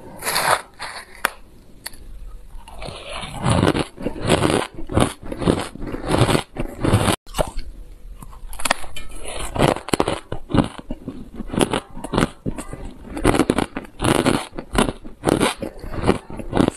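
Close-up crunching of granular shaved ice being bitten and chewed, a rapid run of crisp crackles that keeps going without a break, mixed with a metal spoon scraping through the ice in a plastic tray.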